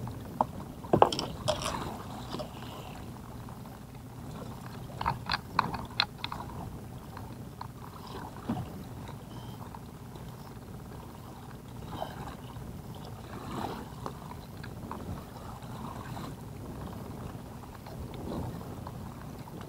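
Scattered sharp clicks and knocks from a netted kokanee salmon being unhooked and the landing net and tackle being handled in the bottom of a small boat. The loudest are about a second in and a quick cluster around five to six seconds, over a steady low wash of wind and water.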